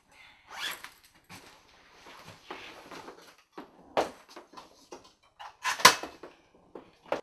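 A string of household knocks and bangs with faint rustling between them. The loudest is a sharp bang about six seconds in, and another knock comes just before the end.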